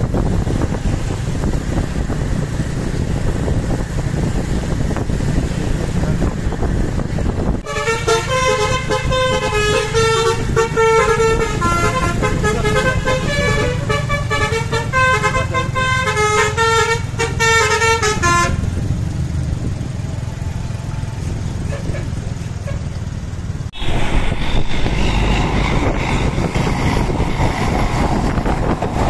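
A bus's 'telolet basuri' multi-tone musical horn plays a quick tune of changing notes for about ten seconds, starting about eight seconds in, over steady engine and road noise. After the horn stops the road noise carries on, then switches abruptly to a louder rushing noise near the end.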